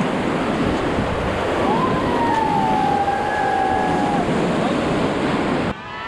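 Whitewater of a river rapid rushing loudly around a raft, with a long drawn-out shout from a rafter that slides down in pitch from about two seconds in. Near the end the rushing cuts off abruptly and voices begin.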